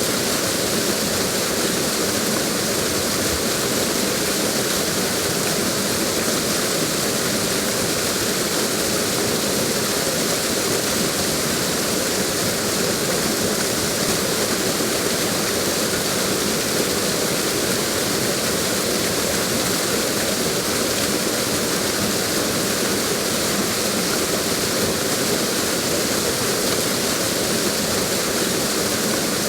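Waterfall: water cascading in a steady, dense rush with no change.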